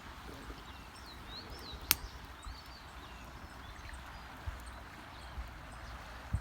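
Outdoor ambience: small birds chirping over a steady background rush, with one sharp click a little under two seconds in and a few soft low thumps.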